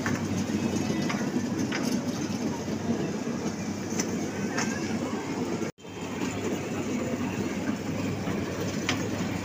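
Kiddie train ride running on its circular tubular rail track: a steady rumble of the small cars rolling along the rails, with a few faint clicks. The sound cuts out for a moment about six seconds in, then carries on.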